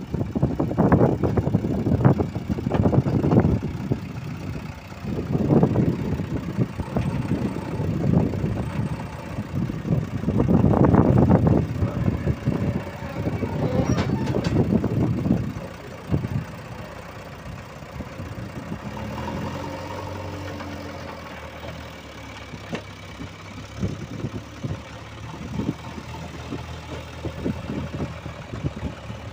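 JCB 3DX backhoe loader's diesel engine revving in repeated surges under load while digging and loading mud, then settling to a steady idle after about sixteen seconds.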